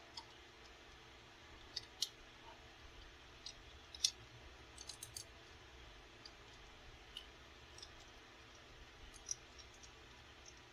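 Hard plastic parts of a transforming robot toy clicking and tapping as a small armor piece is tried against the figure's slots: scattered light clicks, the loudest about two and four seconds in.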